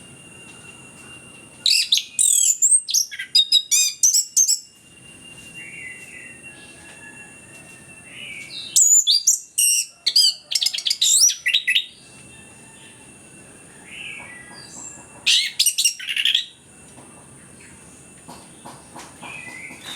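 Orange-headed thrush in full song: rapid, varied whistled phrases in three bursts with pauses between them, over a steady high tone.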